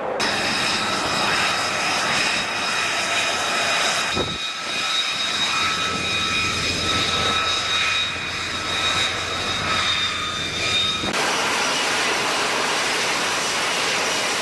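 F-35 Lightning II's jet engine running on the ground: a steady high whine over a broad rush of jet noise. The sound changes abruptly about four seconds in and again about eleven seconds in, as if cut between shots.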